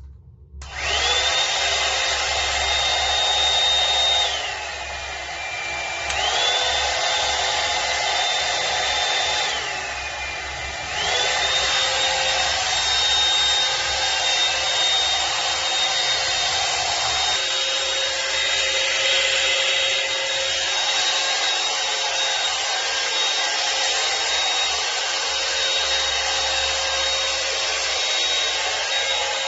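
Hot-air brush hair dryer switching on about a second in and running with a steady high whine and rushing air. Twice it slows to a lower, quieter pitch for a couple of seconds, then speeds back up.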